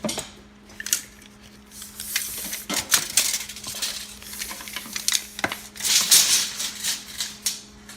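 Hands handling a hard drive docking station and its packaging: irregular plastic clicks and knocks, with two spells of crinkly rustling, one about two seconds in and one about six seconds in.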